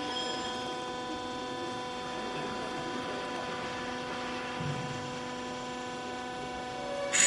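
Hydraulic clothes baler's power unit running with a steady hum. A brief loud clatter comes right at the end.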